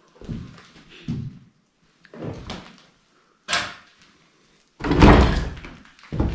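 Footsteps on a floor strewn with papers and debris, about one a second, with a louder, longer knock and scrape about five seconds in.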